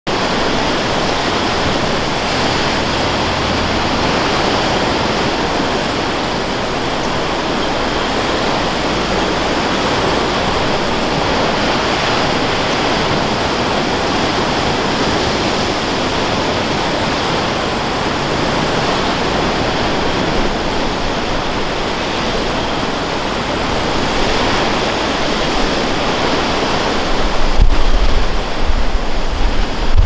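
Sea surf breaking and washing over a rocky shore: a steady rush of foaming water. Near the end, wind buffets the microphone with low rumbling gusts.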